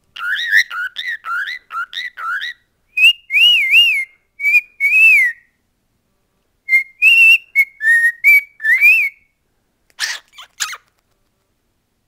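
Cockatiel whistling a song close to the microphone: a quick run of short rising whistles, then longer warbled notes with a short pause about five seconds in, ending with a couple of harsher chirps.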